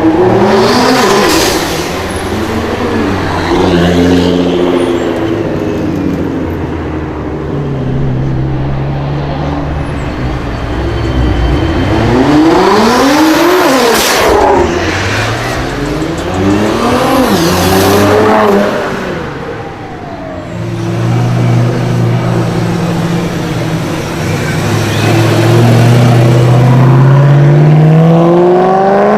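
Modified car engines with loud aftermarket exhausts revving, the pitch climbing and falling again and again, with a few sharp exhaust pops. Near the end one engine pulls up in pitch in a long steady climb.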